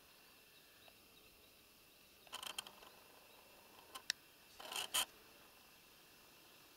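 Brief rustling and scraping close to the microphone in three short spells, about two, four and five seconds in, with a sharp click near four seconds, over a faint steady outdoor background.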